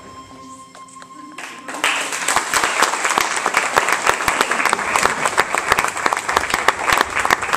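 The dance music ends on a faint held note, then about two seconds in an audience breaks into loud applause that keeps going.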